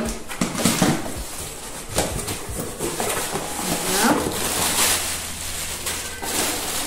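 Paper and plastic packaging rustling and crinkling as a parcel is unpacked by hand, with scattered light handling knocks. A short sliding call is heard about four seconds in.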